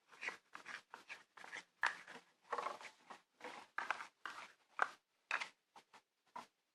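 A utensil stirring and scraping thick cornstarch-and-shampoo slime mixture against a plate, heard as an irregular series of short scrapes, about two or three a second.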